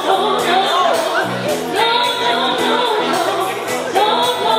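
Live band music with a singer: a steady beat, repeating bass notes and a voice singing over them.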